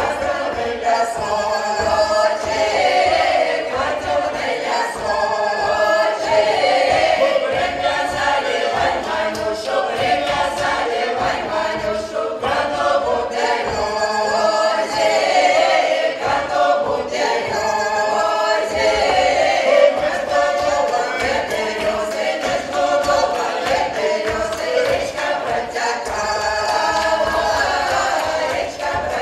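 Folk ensemble of women's and men's voices singing a Russian folk song together in chorus, loud and continuous.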